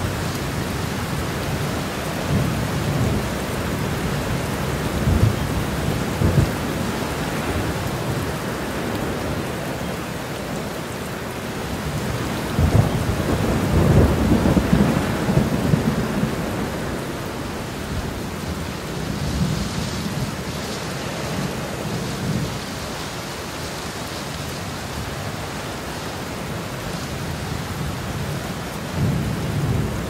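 Steady rain with thunder rumbling again and again; the longest, loudest roll of thunder comes about halfway through, and another swells near the end.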